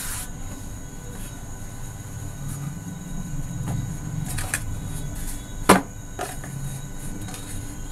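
Pizza dough being flipped and worked by hand on a floured surface: soft handling noise with a few light knocks, the sharpest about two-thirds of the way through, over a low steady hum.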